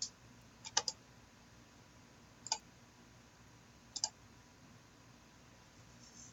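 Computer mouse clicking about five times: a quick double click just under a second in and single clicks at irregular intervals, faint over low room noise.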